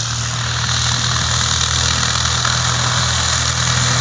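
Stinson light aircraft's piston engine running at full takeoff power on the takeoff roll, a steady drone that grows gradually louder.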